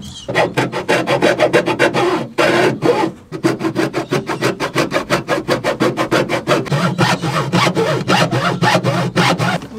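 Hand hacksaw cutting back and forth through the carpet-covered plywood edge of a storage box, in quick, even rasping strokes with short breaks about two and three seconds in.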